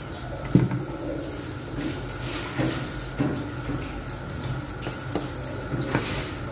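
Slicker brush strokes scratching through rabbit fur, with a few clinks and knocks of metal grooming tools on the table, the sharpest about half a second in. A steady electrical hum runs underneath.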